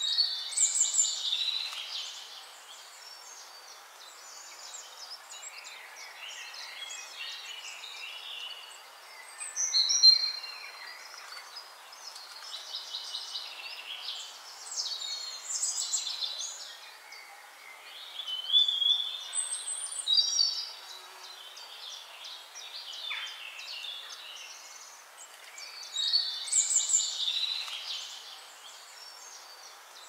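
Small birds chirping, whistling and trilling in short bursts every few seconds over a steady outdoor hiss. The same burst of song comes back near the end.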